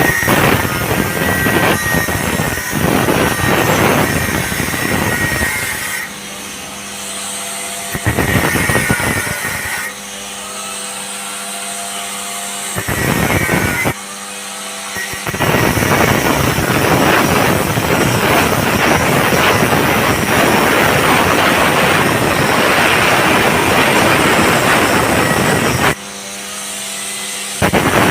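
Angle grinder grinding metal in several spells of loud rasping, the longest about ten seconds, with the tool running freely between them.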